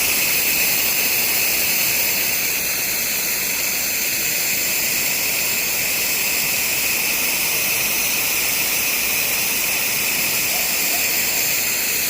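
Pressure washer spraying: the steady hiss of a high-pressure water jet, with no break.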